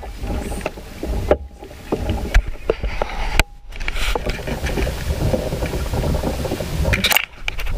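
Kayaks moving on open water: water lapping and splashing around the plastic hulls, with scattered light knocks, over a low rumble of wind on the microphone. The sound cuts out abruptly three times, about a second and a half, three and a half and seven seconds in.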